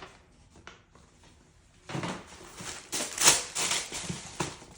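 Rustling and handling noises as a shoe box and its packing are handled, in a cluster of irregular scrapes and knocks starting about two seconds in, loudest just past the middle.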